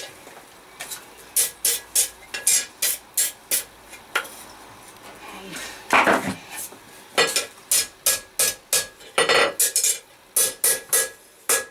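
Blacksmith's hammer striking a hot square steel bar, each blow ringing. The blows come in quick runs of about three a second with short pauses between, and a couple of heavier blows in the middle.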